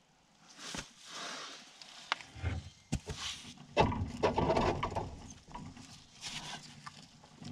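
Clunks, clicks and scraping as a John Deere 7200 planter's gauge wheel is worked by hand back onto its arm and spindle. There are sharp clicks about one and three seconds in, and the busiest handling comes about four seconds in.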